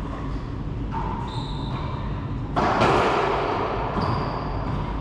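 Racquetball struck hard about two and a half seconds in, a sharp crack that rings around the enclosed court for over a second. Short high squeaks of sneakers on the hardwood floor come before and after it.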